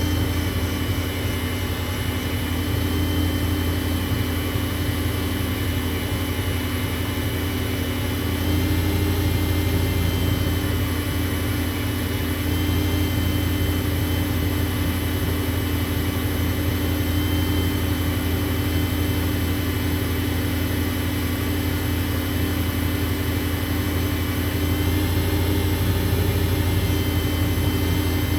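WEN benchtop lathe's electric motor running steadily at speed: a low hum with a thin high whine over it, its tone and loudness shifting slightly a few times.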